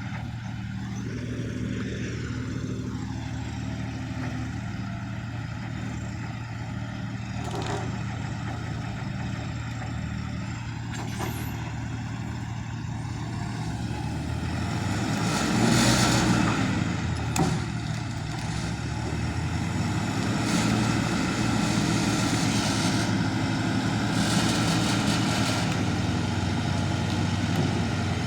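Heavy vehicles running steadily with a low engine hum. Louder passes swell up several times, the loudest about halfway through.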